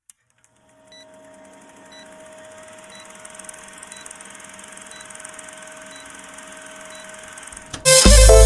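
Faint, slowly building intro of steady tones with a short high tick about once a second, then loud electronic background music with a beat kicks in near the end.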